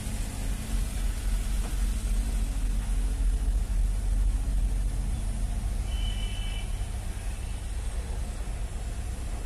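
Heavy diesel earthmoving machinery running with a steady low rumble. A brief high tone sounds about six seconds in.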